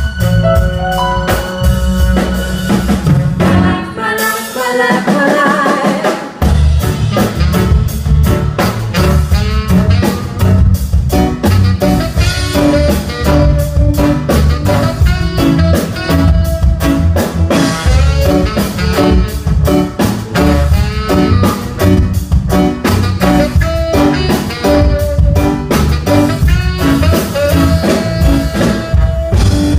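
A live band playing with drum kit and bass. About four seconds in, the bass and drums drop out for roughly two seconds, then the full band comes back in.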